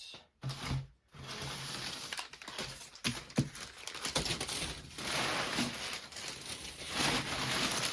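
Knife cutting open cardboard boxes through the packing tape: a continuous scratchy rustle with a few sharp clicks.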